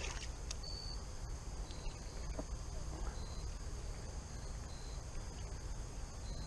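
Insects chirping: short high-pitched chirps about once a second over a steady high hum, with a steady low rumble underneath and a few faint clicks.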